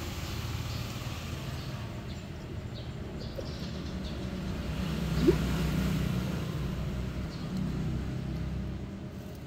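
Low rumble of a passing vehicle, swelling through the middle and easing off near the end, with one short rising squeak about five seconds in.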